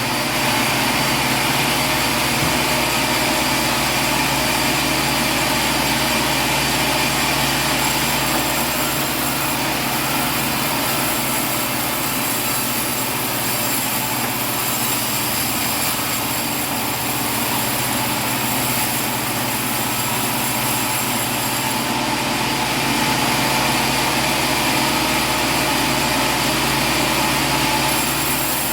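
Sawmill machinery running steadily: a continuous mechanical drone with steady tones and a constant hiss, unchanged throughout.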